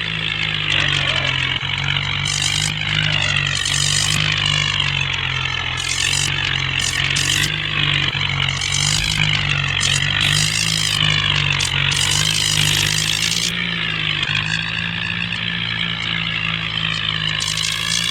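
Engine of a modified bulldozer running steadily, with a low even drone and a wavering higher whine over it.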